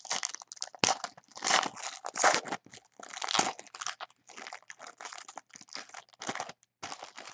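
Foil wrapper of a Panini Prism basketball card pack crinkling in the hands as it is opened: a run of irregular crackling rustles, loudest in the first three or four seconds, then lighter crinkles.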